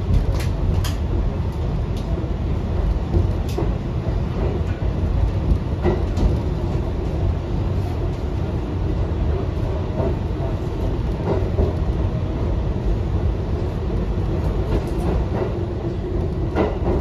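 R62A subway train running on the rails: a steady, dense low rumble of wheels and running gear with a few scattered sharp clicks from the track.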